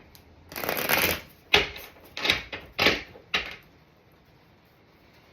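A deck of tarot cards being shuffled by hand: about five short, papery strokes, the first and longest about half a second in, the last around three and a half seconds in.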